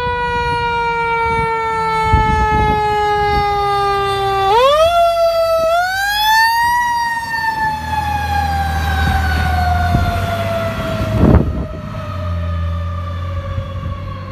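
Fire engine siren winding down in pitch, pushed back up once about five seconds in and then sliding slowly down again. The truck's engine rumbles low as it passes close by, and a short loud burst is heard a few seconds before the end.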